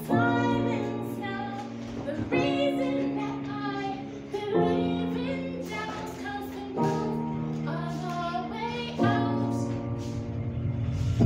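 Backing music with held chords that change about every two seconds, and a woman singing over it without a microphone.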